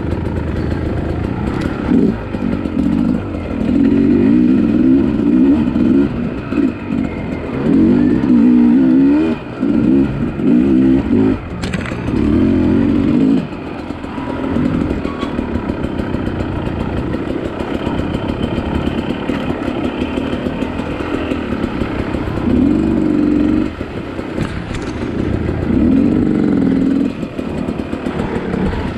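Two-stroke dirt bike engine revving up and down with the throttle as the bike is ridden, the pitch rising and falling again and again.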